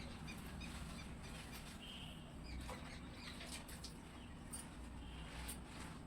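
Faint small-bird chirps, short and repeated, with a few soft clicks over a low steady background hum.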